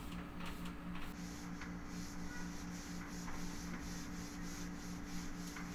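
A cloth rubbing on a glass door in quick, even strokes, smoothing frosted privacy film onto the glass, over a faint steady hum.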